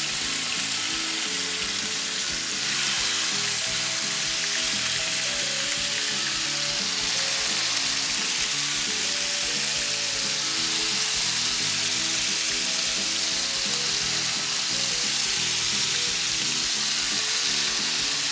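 Chunks of bear meat searing in hot rendered bacon fat: a steady, loud sizzle that swells a little about three seconds in, with music playing faintly underneath.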